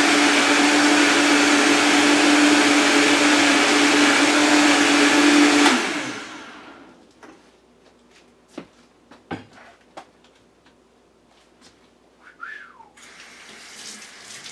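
Vitamix high-power blender running at full speed with a steady tone, switched off about six seconds in and winding down to a stop. A few light knocks and clunks follow as the blender jug is handled, and near the end a kitchen tap starts running.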